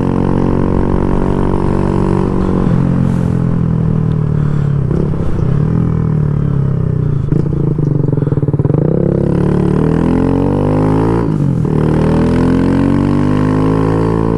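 Kawasaki Z125 Pro's 125 cc single-cylinder engine under way, heard from the rider's helmet. Its pitch rises and falls several times as the bike accelerates, changes gear and slows.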